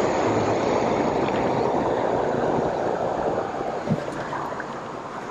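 Steady rush of a mountain river's current, easing slightly partway through, with a single brief knock about four seconds in.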